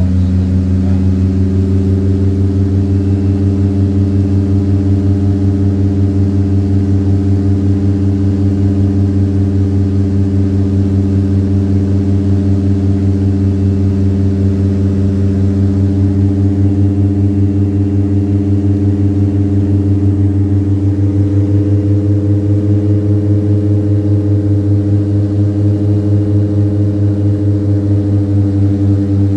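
DHC-6 Twin Otter's PT6A turboprop engines and propellers droning steadily, heard inside the cabin on final approach. The drone is a deep hum with several steady tones above it, rising slightly in pitch about two-thirds of the way in.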